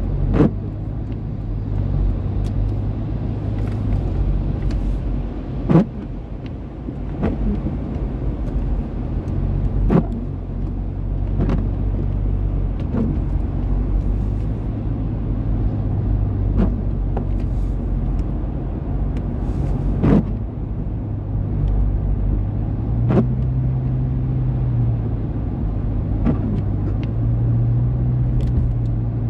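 Steady low rumble of a car's engine and tyres on a wet road, heard from inside the cabin, with short sharp knocks every few seconds at irregular spacing.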